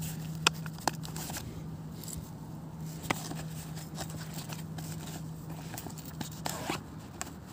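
A black nylon sheath being handled as the steel axe head of a multi-tool is drawn out: a few sharp clicks from its metal snap fastener and the tool, the clearest about three seconds in, over soft fabric rustling.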